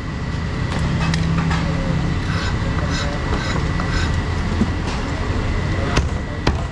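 Low, steady rumble of a nearby vehicle engine, with a few sharp cleaver knocks on a chopping block, two of them near the end.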